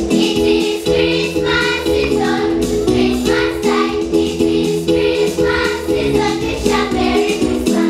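Music with a group of children singing along, continuing without a break.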